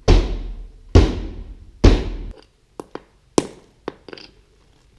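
Heavy blows struck on a car's body, about one a second, each ringing out and fading, followed by a few short, lighter knocks.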